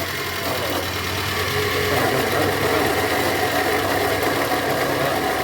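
Renault Logan's engine idling steadily after being started, with the alternator making a strange noise that the mechanic puts down to a bad alternator bearing.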